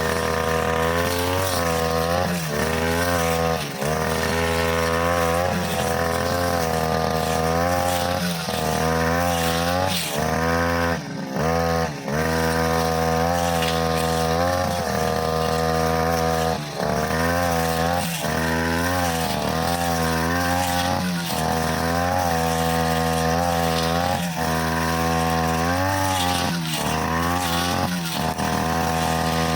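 OGAWA petrol brushcutter running at high speed with a cutting blade going through overgrown grass. The engine note sags and recovers again and again as the blade takes the growth, with a brief drop in speed about eleven seconds in.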